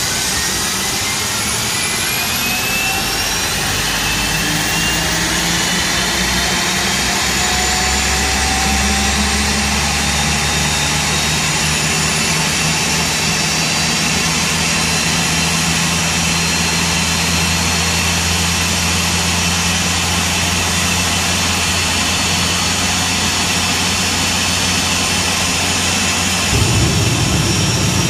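GE CF34-10E turbofan on an Embraer 195 starting up: a rising whine as it spools up over the first ten seconds or so, then settling into a steady idle hum. A low rumble joins near the end.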